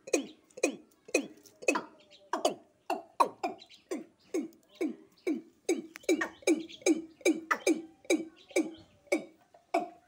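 Male watercock calling: a steady run of short, low notes, each falling in pitch, about two a second.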